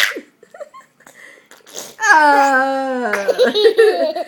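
A toddler's drawn-out silly vocal noise. It holds steady for about a second, slides down in pitch, then wavers into laughter. Just before it, right at the start, a short hissy burst trails off.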